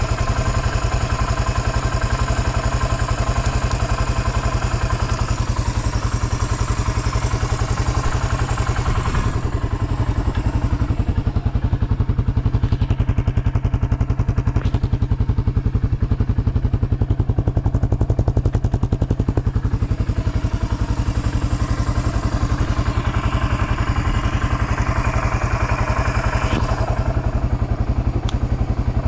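Suzuki DR350 single-cylinder four-stroke engine (K406) idling steadily in a DR250, running evenly without any odd noise.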